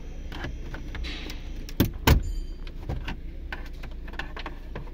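Plastic dashboard trim cover of a 2015 Toyota Corolla being pried loose by hand, giving a string of sharp plastic clicks and knocks as its clips let go; the two loudest come about two seconds in.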